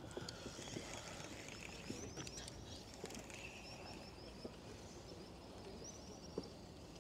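Faint outdoor ambience with a bird chirping in a quick series of short, high notes, and a few faint clicks.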